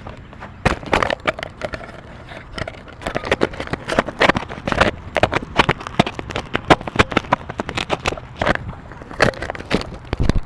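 A long run of sharp, irregular cracks and snaps, several a second, starting under a second in and going on almost to the end.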